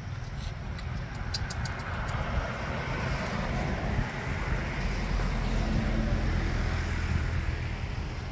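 Road traffic with a light truck driving past: engine and tyre noise swells to its loudest midway, then eases, over a steady low rumble. A few faint clicks sound in the first couple of seconds.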